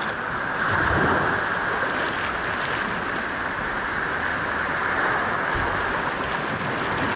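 A steady rushing noise with no distinct tones, strongest in the upper-middle range.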